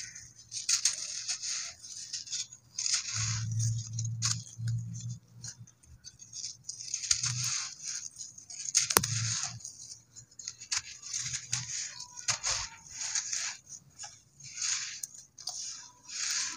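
Soft cement pieces being crumbled and crushed, crunching and crackling in irregular bursts with sharp little clicks, a loud snap about nine seconds in, and a few dull low knocks.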